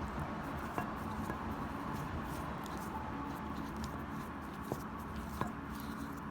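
Chicken legs being handled and rolled in cornstarch in a bowl: soft handling sounds with a small click about a second in and two more near the end, over a steady background hum.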